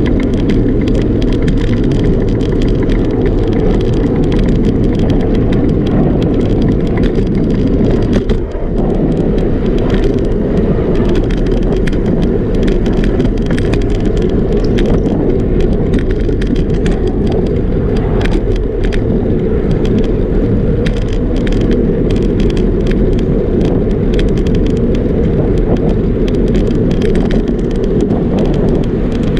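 Steady wind rush on the microphone of a camera riding on a moving bicycle, with tyre rumble on pavement and frequent small clicks and rattles from bumps in the path.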